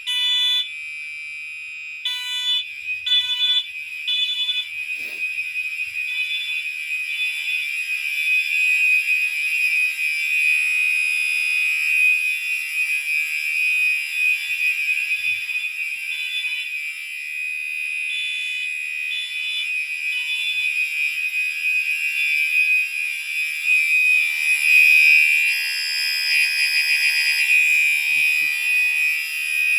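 Two fire alarm horn/strobes sounding at once: a Gentex Commander 3 on its continuous horn setting, one steady unbroken buzzing tone, and a Wheelock MT on its code 3 tone, three short beeps then a pause, repeating.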